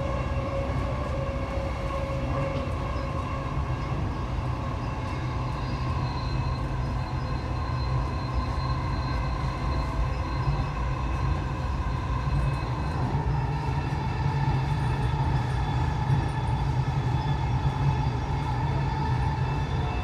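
Dubai Metro train running, heard from inside the car: a steady low rumble with thin whining tones over it. The whine drops slightly in pitch and the sound grows a little louder in the second half.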